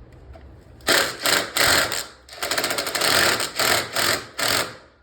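Electric jackhammer run in about six short bursts, a loud rapid hammering, breaking up concrete around the toilet drain to get at the offset flange.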